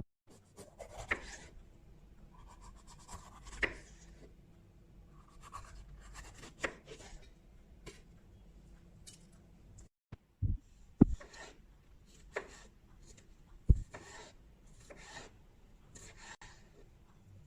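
Food being prepared by hand: irregular scraping and rubbing strokes, with a few sharp knocks partway through.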